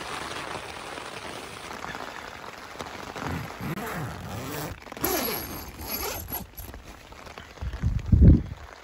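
Rain pattering steadily on tent fabric, then a tent door zip being pulled in several quick strokes from about three to six seconds in. Near the end, a gust of wind buffets the microphone with a low rumble.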